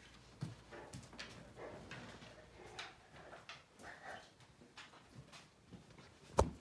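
Light knocks and rustling from a large dog nosing about at a wooden cabinet, with one sharp knock near the end.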